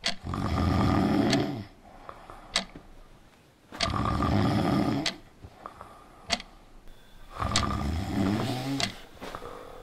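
A person snoring: three long snores, each about a second and a half, coming every three to four seconds with quiet breaths between.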